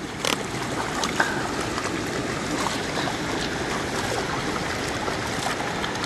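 River water running steadily over a river crossing, with a few faint clicks or splashes near the start.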